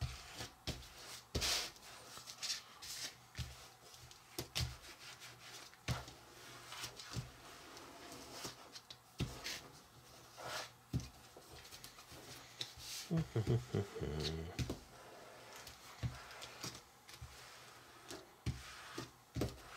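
Hands kneading and working a soft, cookie-like dough stiffened with a little added flour: faint rubbing with scattered soft taps on the work surface. A short pitched sound comes about two-thirds of the way through.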